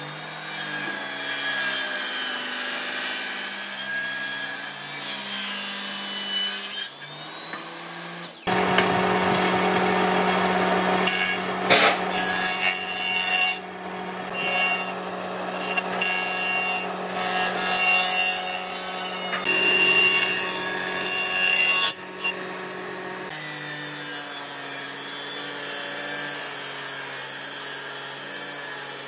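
Table saw ripping old reclaimed wooden boards. About eight seconds in it gives way to a jointer planing the face of a weathered board for about fifteen seconds, and then the table saw cutting again near the end.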